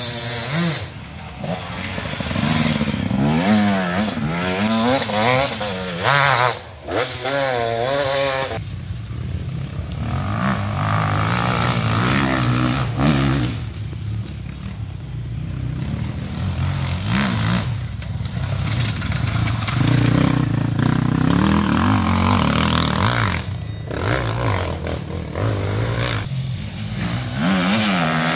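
Enduro motorcycles racing past on an off-road course, engines revving hard with the pitch rising and dropping again and again through throttle and gear changes, fading and returning as bikes come and go.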